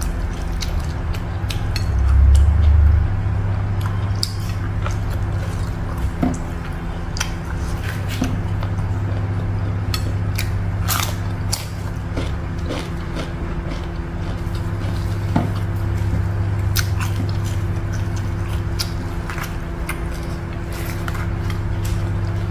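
Close-miked eating by hand: chewing and mouth smacks, with small clicks of fingers picking rice off a plate, over a steady low hum. A louder low thump comes about two seconds in.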